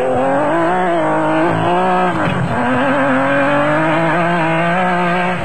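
Off-road race vehicle's engine running hard at high revs, its pitch wavering, dropping briefly about two seconds in, then climbing steadily as the vehicle accelerates.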